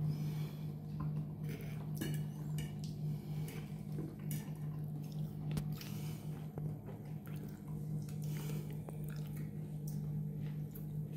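Eating from a plate: a fork clinking and scraping on the plate and chewing, in scattered small clicks, over a steady low hum.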